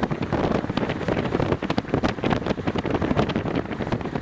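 Strong gusty wind buffeting the microphone: a loud, steady rumbling rush broken by irregular crackles.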